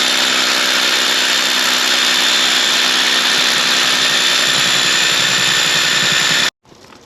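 Grain-handling machinery running steadily while a grain bin is being filled: a loud, even mechanical noise with a high, steady whine, cutting off suddenly near the end.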